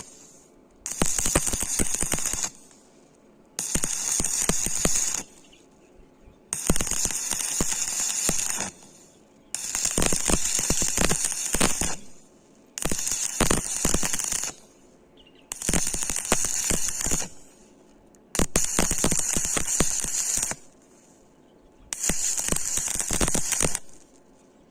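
Stick (shielded metal arc) welding: the electrode's arc crackling and sputtering in eight bursts of about two seconds each, broken off by short silent gaps as the arc is struck and stopped again and again.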